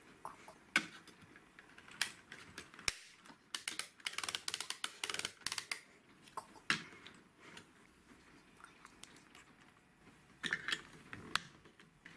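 LEGO Duplo plastic bricks and crane parts being handled and clicked together: scattered sharp plastic clicks, with a rapid rattling run of clicks for about two seconds near the middle and another short cluster near the end.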